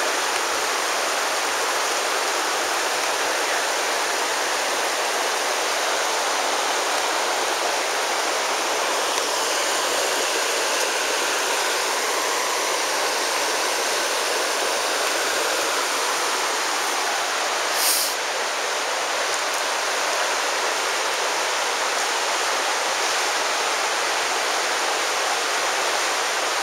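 The Virgin River rushing steadily, a continuous hiss of flowing water. A single short sharp tick about eighteen seconds in.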